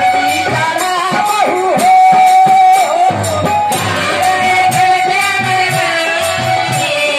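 Bhojpuri haldi geet performed live: a male singer's voice, amplified and holding long bending notes, over a steady dholak drum beat with jingling percussion.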